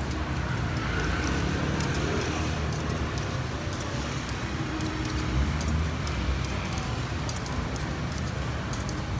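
Metal picks clicking and scraping against a takoyaki griddle as the balls are turned, in many short irregular ticks, over a steady low background rumble.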